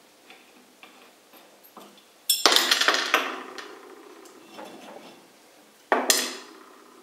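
Metal parts of a sewing machine handwheel clinking and clanking as they come off the shaft and are set down: a few light clicks, then a loud metallic clatter about two seconds in that rings on for about a second, and a second sharp clang with ringing near the end.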